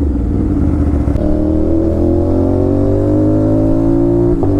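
Aprilia RS 457's parallel-twin engine through an SC Project exhaust, pulling under steady acceleration, its note rising slowly in pitch. There is a brief break in the note near the end.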